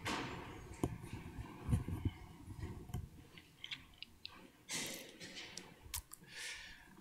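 A gooseneck pulpit microphone being handled and adjusted: scattered soft clicks and low thumps, with two short hissing rustles in the second half.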